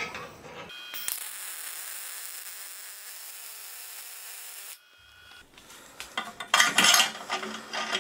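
A few metal clicks as steel parts are fitted by hand, then from about a second in the steady hiss of a MIG welding arc, which stops suddenly near the five-second mark. After it comes a run of metal clanking and scraping, loudest near the end, as the steel tension screw and slide are handled.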